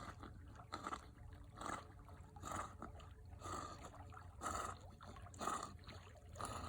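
Dog swimming in a lake, faint water sloshing in regular pulses about once a second with its paddling strokes.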